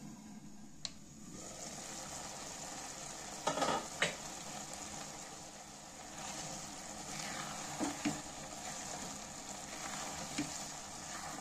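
Masala noodles sizzling in a granite-coated nonstick pan, the sizzle getting louder about a second in once the glass lid is off. A spatula stirs through them, scraping against the pan a few times.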